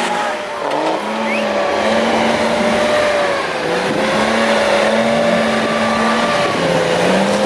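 A 4x4's engine revving hard and held at high revs, its pitch wavering up and down, as the wheels spin while it ploughs uphill through deep snow.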